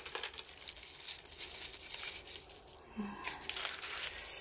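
Bubble wrap crinkling, with small ticks of loose granite grit, as a potted succulent is handled and turned on it; the crackling picks up in the last second or so.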